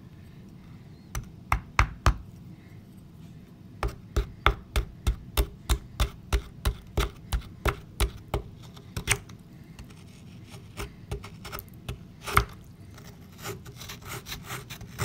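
A small digging tool chipping and scraping at a water-softened dig-kit block in a glass dish. It gives a run of sharp knocks, about three a second for several seconds, then softer scraping and scattered taps with one loud knock later on.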